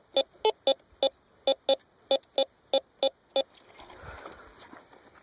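Metal detector sounding a buried target as it is pinpointed: about a dozen short, sharp beeps in quick, uneven succession, stopping after about three and a half seconds, followed by a soft scrape.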